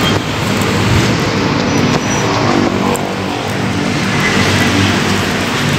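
Street traffic: a motor vehicle's engine running steadily, with the hum of traffic.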